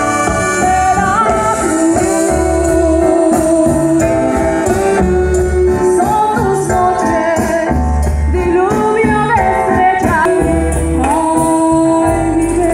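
Music: a singer holding long, sliding notes over a band with a steady beat and bass.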